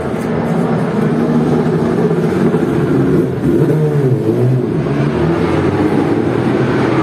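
Racing motorcycle engines running in a pit lane, a loud steady drone whose pitch bends up and down around the middle.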